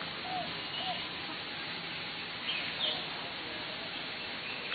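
Outdoor ambience: a steady background hiss with a few short bird calls and chirps scattered through it.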